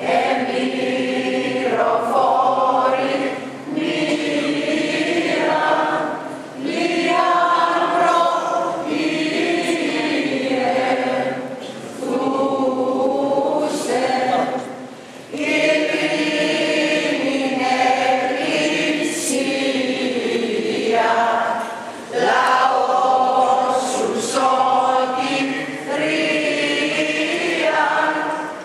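Greek Orthodox Byzantine chant sung by a choir, in long phrases with short breaks between them.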